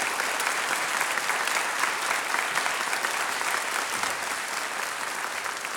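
A large seated audience applauding with steady, dense clapping that slowly grows quieter toward the end.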